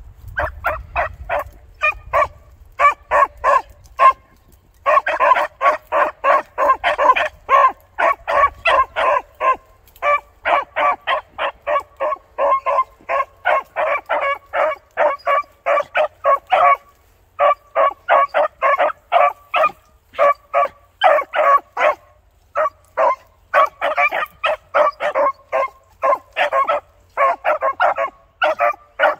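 Beagle hounds barking on a track in the brush, a fast steady run of short, high barks, about five a second, broken by brief pauses.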